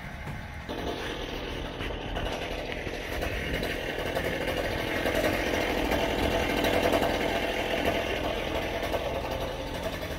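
Demolition machinery tearing down a garage: an engine running steadily, joined about a second in by a harsh, noisy clatter that grows louder toward the middle.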